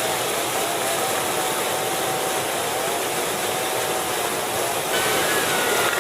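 Steady rush of whitewater river rapids, with faint voices of people calling out over it.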